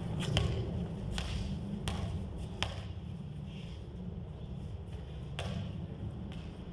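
Basketball bouncing on a concrete court: a few sharp dribbles about 0.7 s apart in the first three seconds, then one more single bounce about five seconds in, over a steady low rumble.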